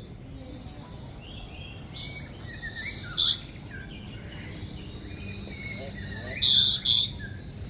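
Lories and lorikeets calling: softer chirps, then a loud harsh screech about three seconds in and a double screech near the end.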